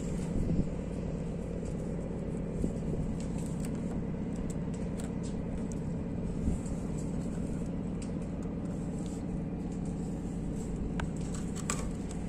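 A steady low rumble with a faint hum. A few light clicks and rustles come from thin Dyneema line being handled and pulled through a lashing.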